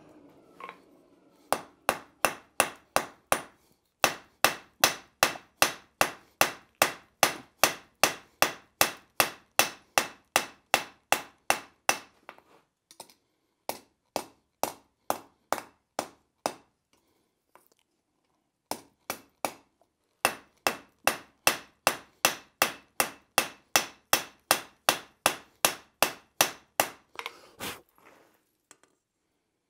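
Blacksmith's hand hammer striking a red-hot steel bar on an anvil, flattening the end of a stand leg. The blows ring sharply at a steady pace of about three a second, in two long runs with a pause of a few seconds and only a few scattered blows in the middle.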